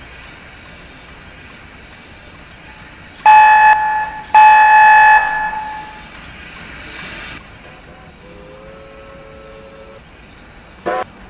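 Steam whistle of Strasburg Rail Road No. 90, a 2-10-0 steam locomotive, sounding two long blasts about three seconds in, over the steady running noise of the train. Near the end comes a quieter, lower short toot of a different pitch.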